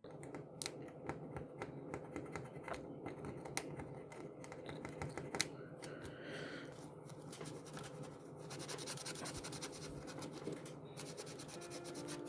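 Small hand scraper scratching and clicking against an iPod Nano's body, scraping off leftover adhesive residue; the scratching gets faster and denser in the latter part.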